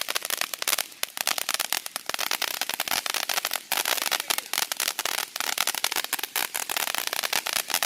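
Fireworks going off in a dense, rapid string of crackling pops, many a second, without a break.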